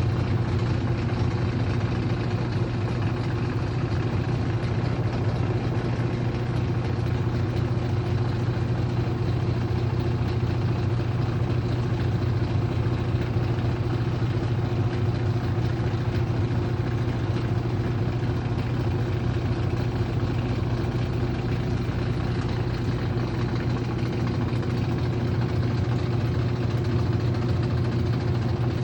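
Aurrtech AU0003 portable washing machine running with a loud, steady motor hum that does not change. The owner counts this noise as abnormally loud.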